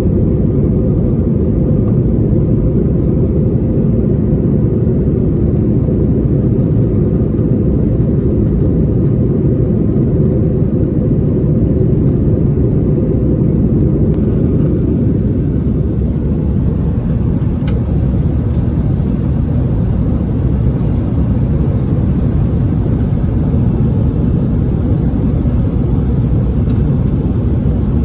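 Steady rumble of engine and airflow noise inside the cabin of a Delta Airbus A321 in flight, heard from a window seat.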